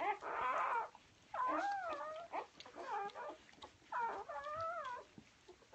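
Newborn golden retriever puppies crying in high, wavering squeals, about four cries of roughly a second each with short gaps between them.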